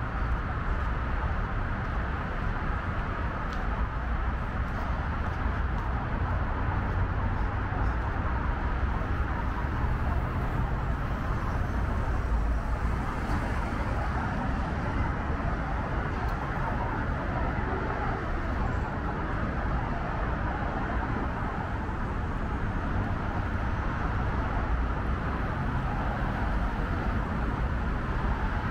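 Steady, unbroken traffic noise: the continuous rush of freeway traffic on Interstate 5, with no single vehicle standing out.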